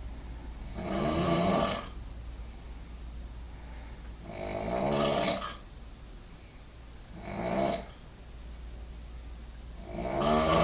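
A sleeping person snoring heavily, four snores about three seconds apart on each inward breath, the third one shorter.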